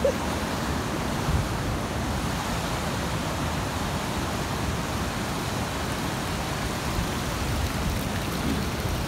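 Steady rushing of a waterfall: an even roar of water with no breaks.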